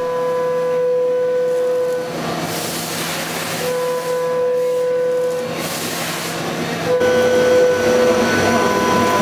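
Haas Super VF-2 CNC vertical mill with a 12,000 rpm direct-drive spindle cutting a 6061 aluminium plate. A steady high whine from the cutter comes and goes three times, with hissing in between.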